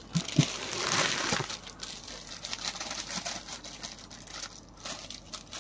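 Crinkling and rustling of wrapped suit fabric being handled, loudest in the first second and a half, with scattered light clicks and taps.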